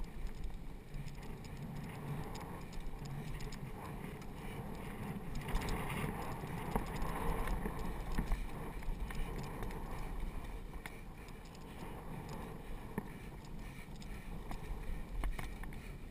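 Mountain bike riding a dirt singletrack: tyre noise on the trail with the bike rattling and clicking over bumps, over a steady low rumble of wind on the camera. It gets louder for a couple of seconds about six seconds in.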